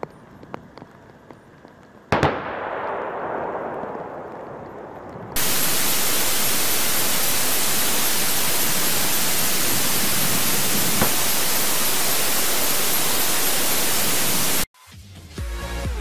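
A single distant tank gun shot about two seconds in, its boom rolling on and fading over the range. It is followed by a loud, steady hiss of static that cuts off abruptly, and electronic music starts near the end.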